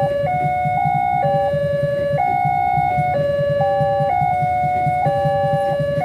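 Two electronic warning sirens sound together at an Indonesian railway level crossing: the gate siren and the siren of the extra train-direction lamp. Each alternates between a high and a low note about once a second, and the two run out of step with each other. A low rumble from the passing train runs underneath.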